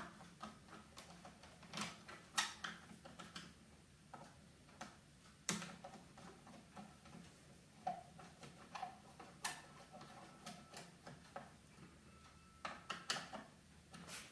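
Irregular light clicks and ticks of a Phillips screwdriver driving screws and of the plastic joystick controller being handled as it is screwed back onto its mount. A few sharper clicks stand out among the faint ones.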